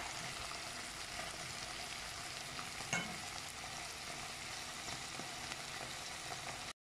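Sausages and sliced onions sizzling as they fry in a pan, a steady hiss with one light tap about three seconds in. The sound cuts off abruptly near the end.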